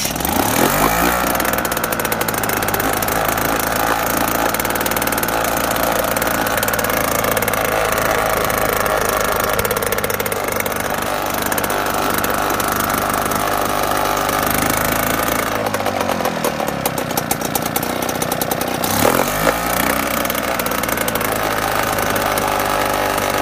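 British Seagull Forty Minus outboard, a single-cylinder two-stroke, starting right away and running steadily. Its engine note changes about two-thirds through and rises again near the end. The engine is in good order, running fine.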